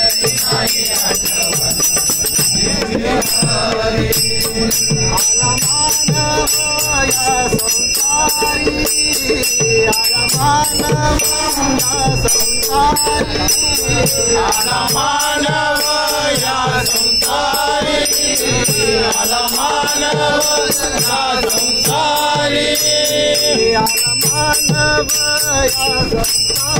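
Group of men singing a Marathi devotional bhajan to Vitthal, accompanied by a tabla and small brass hand cymbals (manjira) struck in a steady rhythm. The cymbals' ringing and the drum strokes lead into the singing, and the voices come in about five seconds in.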